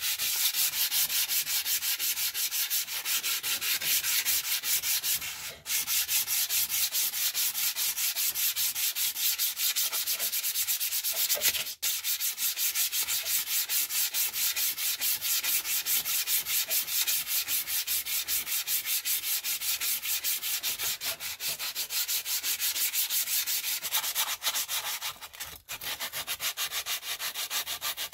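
Hand-sanding a steel axe head with abrasive paper: a rasping hiss in quick, even back-and-forth strokes, with three short pauses.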